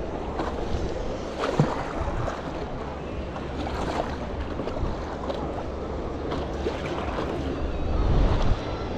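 Stand-up paddle dipping into sea water with a splash every second or two, and water lapping against the paddleboard. Wind buffets the microphone, strongest about eight seconds in.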